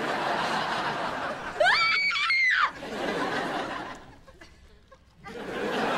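Sitcom studio audience laughing. A single voice gives a short cry that rises and falls in pitch about two seconds in. The laughter fades about four seconds in and swells again near the end.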